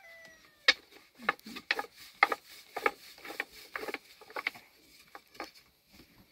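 Thin wooden rolling pin knocking and rubbing on a wooden bread board as flatbread dough is rolled out, in short strokes about two a second. At the very start a rooster's crow trails off.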